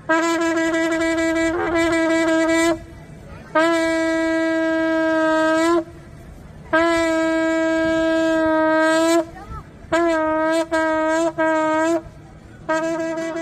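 Shofar blown in a run of blasts on one steady, bright note: three long held blasts, then three short blasts in quick succession, then another blast starting near the end.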